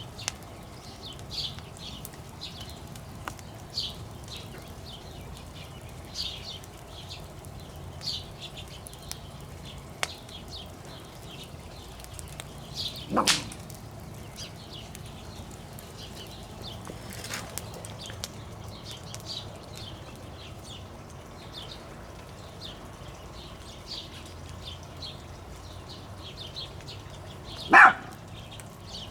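Outdoor evening ambience: short high chirps repeat every half second to a second over a low steady hum. Two louder, sharper sounds stand out, about 13 seconds in and again near the end.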